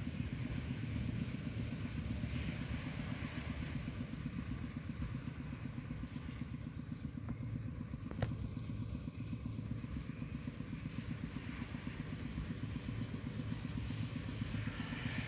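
Steady low rumble, with a faint high-pitched pulsing trill that comes and goes, and a single sharp click about eight seconds in.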